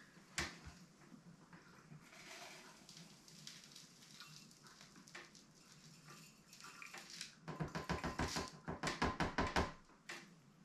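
Thick blended oat-and-protein shake poured from a blender jug into a shaker bottle: faint for most of the time, with a knock about half a second in, then a quick run of glugs lasting about two seconds near the end.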